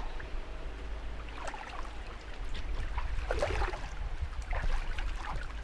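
Pool water sloshing and splashing as a person wades through it and climbs out over the edge, over a steady low rumble.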